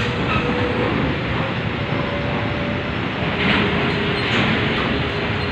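Steady mechanical rumble of a berthed ro-ro passenger ferry and vehicles rolling off its steel bow ramp during unloading, with a faint hum of machinery tones underneath.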